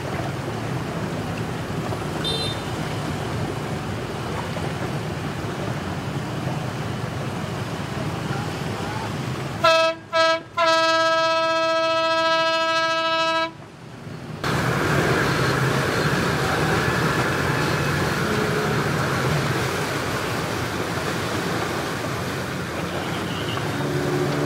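Steady wash of choppy water and wind with a low rumble underneath. About ten seconds in, a boat's horn sounds two short toots and then one long blast of about three seconds on a single steady note.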